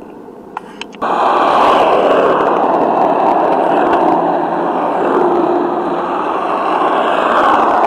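Small hard plastic wheels of several plasma cars rolling fast over rough fresh asphalt, a loud steady rolling noise that starts suddenly about a second in.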